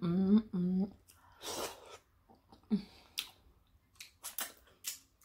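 Close-miked eating sounds of a seafood boil: a few short hummed voice sounds in the first second, then chewing with wet smacks and scattered sharp clicks and crackles.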